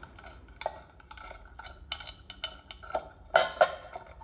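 Metallic clinks and scrapes as the chrome hubcap of a 1970 Fiat 500 L is unscrewed from the wheel, with two louder clinks a little after three seconds in.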